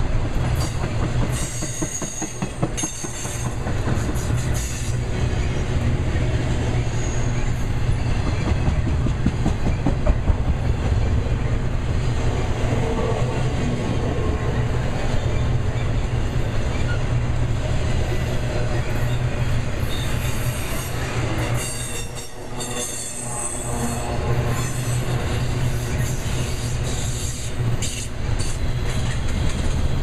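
Intermodal freight cars carrying trailers and containers rolling past: a steady rumble of steel wheels on rail with rapid clicking, and a few brief high-pitched wheel squeals now and then.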